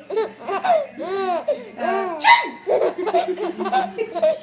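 A baby laughing in repeated rising and falling peals. About halfway through there is a short, sharp noisy burst, the loudest moment.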